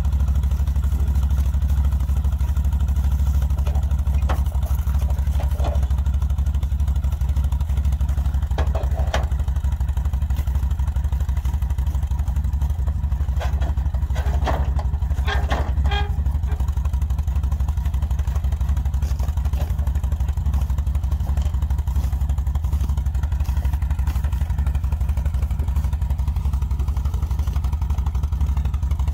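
CFMOTO CForce 850XC ATV's V-twin engine idling steadily on a trailer. A few clinks and knocks of metal come between about 9 and 16 seconds in.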